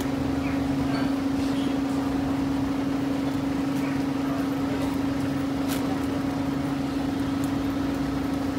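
A steady low mechanical hum holding one pitch throughout, over a busy street background.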